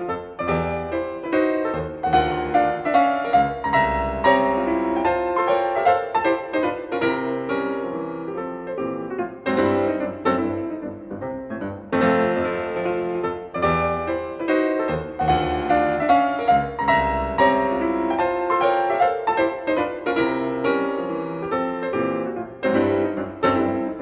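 Solo piano music playing, flowing notes with a phrase that repeats about halfway through.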